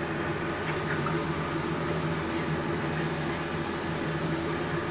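Steady low mechanical hum, like a small motor running, with an even drone that does not change.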